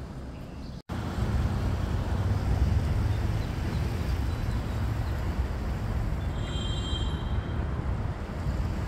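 Steady low rumble of outdoor traffic noise, cutting out for an instant just under a second in and coming back louder. A brief high-pitched squeal sounds about two-thirds of the way through.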